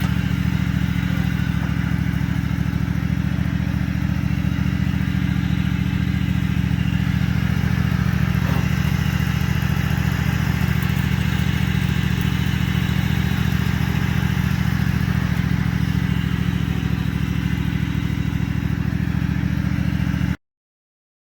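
Small engine of a riding lawnmower converted into a mini tractor running steadily, pulling on a strap hooked to a ratchet's cheater bar to tighten truck U-bolts. The sound cuts off suddenly near the end.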